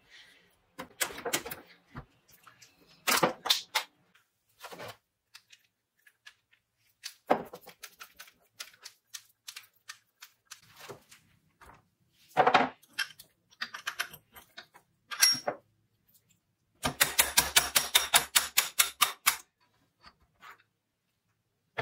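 Metal parts of an old hand drill clicking and knocking as it is taken apart by hand, with scattered single clicks and, near the end, a fast even run of clicks lasting about two seconds.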